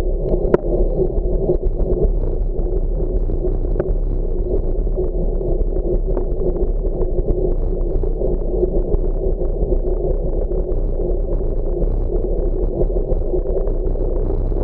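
Steady, muffled wind and road rumble picked up by a camera riding on a bicycle over pavement, with a few faint clicks.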